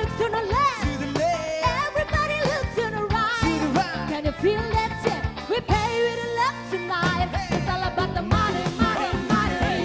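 A band performing a song: singers on microphones over electric guitar and drums.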